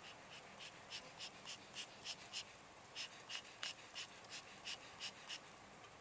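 An animal chirping: a run of short high chirps, about three a second, with a brief break about halfway.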